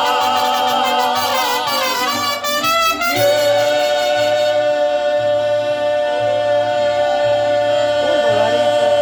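Live band playing a Mexican ranchera with brass and voice. Wavering notes give way, about three seconds in, to one long held note over a steady pulsing bass line.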